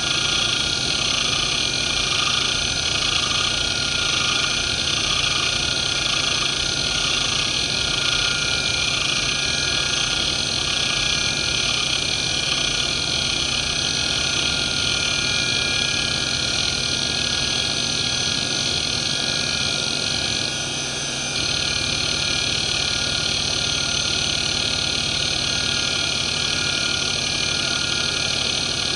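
Fuji Electric FK319A-240R 240 MB hard drive from 1993 running a seek test: the head actuator seeks back and forth without pause over a steady spindle whine, with a short lull about three-quarters of the way through. The drive's spindle bearings are worn.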